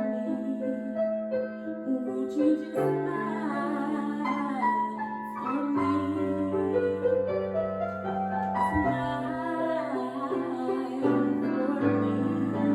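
Music: a slow pop ballad with piano over sustained bass notes and a female voice singing.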